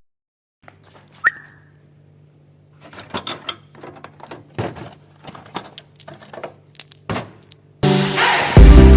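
A series of light clicks and taps from small hard objects being handled, with one sharp metallic click and brief ping about a second in, over a faint steady hum. Louder noise and then music come in near the end.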